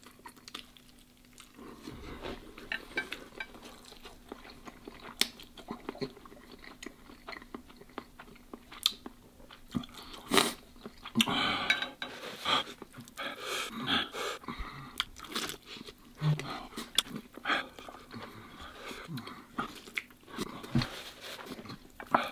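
A man eating spicy stir-fried instant noodles close to the microphone: slurping and chewing, with scattered sharp clicks, busiest in the second half.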